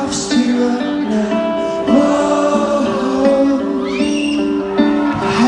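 A live rock band playing, with male lead vocals holding long notes over guitar, as heard from the audience at a concert.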